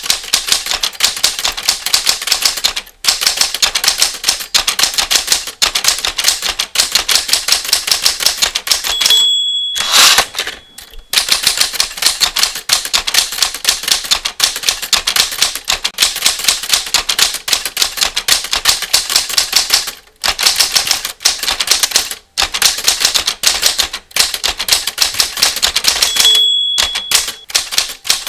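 Mechanical typewriter typing rapidly, the keys clacking about eight to ten a second. Twice, about nine seconds in and again near the end, the end-of-line bell dings and the carriage is slid back for a new line before the typing resumes.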